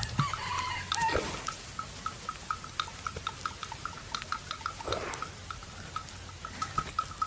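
Buffalo chewing its cud, with louder chews about a second in and near five seconds. A steady run of short high ticks, about four a second, goes on underneath.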